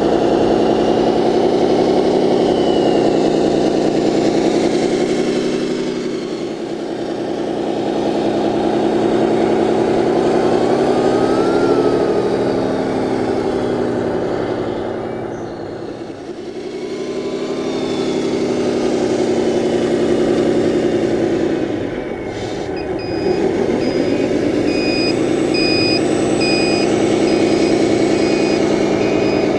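Beier USM-RC-2 sound module in an RC Scania 8x8 dump truck playing a simulated diesel truck engine. It revs up and settles back several times as the truck is driven. About three-quarters of the way through, a reversing beeper starts, beeping steadily over the engine as the truck backs up.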